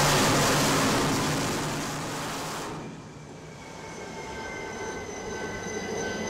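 Jet aircraft engine noise: a loud, even roar that eases off over the first three seconds, then, after a sudden cut, a quieter steady high whine made of several fixed tones.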